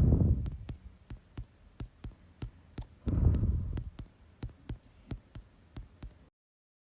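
A recording of lung sounds heard through a stethoscope: two breaths, each a low rushing swell, about three seconds apart. Sharp, evenly spaced clicks run through it at about three a second. The recording cuts off suddenly near the end.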